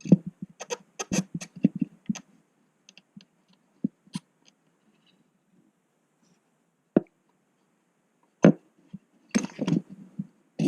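Metal pliers clicking and knocking against the plastic connector and engine parts while working the knock sensor connector loose: a quick run of clicks at the start, a few scattered single knocks, then another run of clicks near the end.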